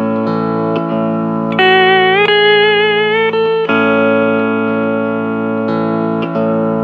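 Hawaiian steel guitar (Hạ uy cầm) playing a slow melody. Its held notes slide up in pitch and waver with vibrato over steady sustained chords underneath.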